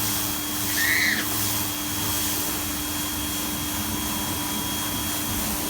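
Pressure washer running steadily, spraying water onto a deck to clean it.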